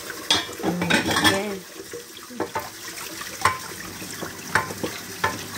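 Dishes and pot lids clinking as they are washed and set into a plastic dish rack, with a kitchen tap running. Several separate sharp clinks come spread through.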